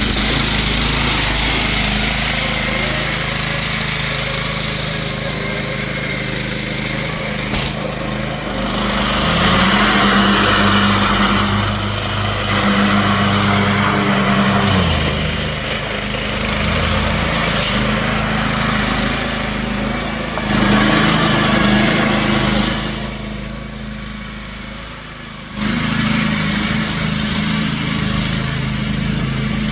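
Riding lawn mower engine running, its pitch and loudness rising and falling several times. Near the end it drops quieter for a couple of seconds, then comes back suddenly.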